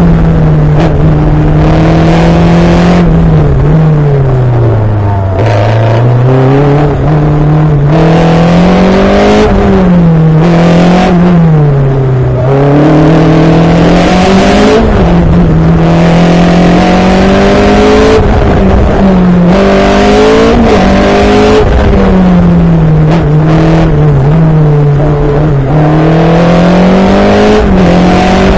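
Open-wheel single-seater race car's engine heard close up from the cockpit, revving up hard and dropping back again and again as it accelerates and slows through a cone slalom.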